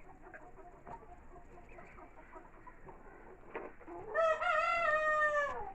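Young black Australorp chickens clucking softly. About four seconds in, a young cockerel gives a single crow about a second and a half long that drops in pitch at the end.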